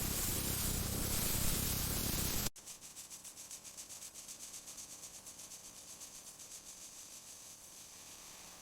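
Steady hiss that cuts off abruptly about two and a half seconds in, followed by a much fainter, fast, even pulsing that slowly fades.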